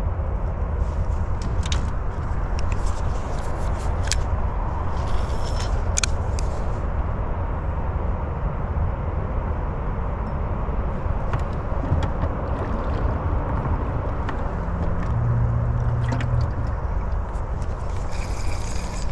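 Wind buffeting the microphone as a steady low rumble, with scattered light clicks and taps from handling a spinning rod and reel. A brief low hum sounds about three-quarters of the way through.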